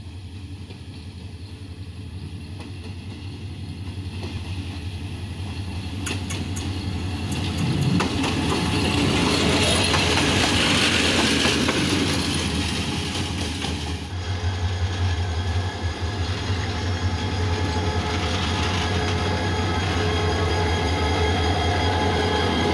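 Bangladesh Railway diesel-electric locomotive approaching and passing close at low speed. A steady deep engine hum grows louder over the first eight seconds. Hissing wheel-and-rail noise with a few clicks peaks as it passes, then the engine runs on steadily close at hand.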